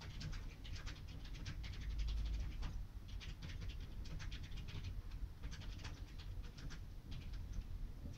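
Handling noise: fingers rubbing, scratching and clicking against a plastic phone battery case as it is turned in the hand, in quick irregular clusters over a low rumble.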